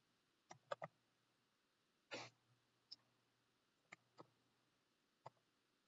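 Faint computer keyboard key presses against near silence: about eight separate clicks, spaced irregularly as a word is typed slowly.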